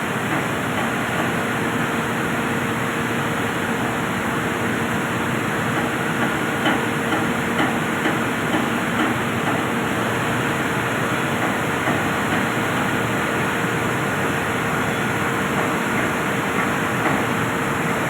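Steady, loud industrial machinery noise: a rushing hiss with a steady hum underneath. A few faint clicks come about six to nine seconds in and again near the end.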